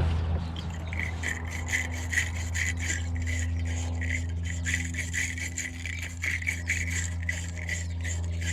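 A wire-brush battery terminal cleaner scrubbing a battery cable connector clean, in quick back-and-forth strokes that start about a second in, to give it a good connection. A steady low hum runs underneath.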